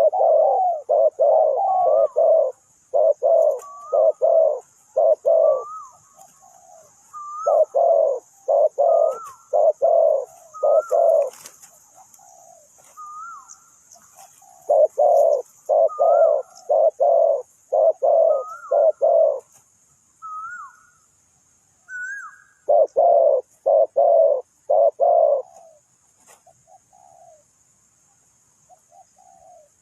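Spotted dove cooing in repeated phrases of quick low coos, some topped with a short higher note, with pauses of one to three seconds between phrases.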